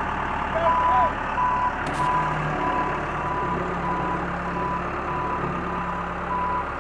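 Backhoe's reverse warning alarm beeping at a steady pitch, about two beeps a second, over its engine running.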